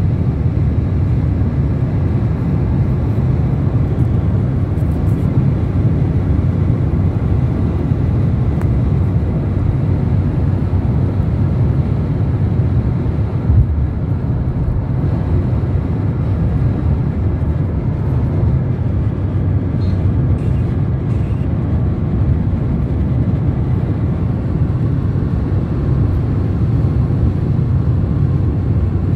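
Steady low rumble of tyre and wind noise inside a car travelling along a highway, with one brief bump about halfway through.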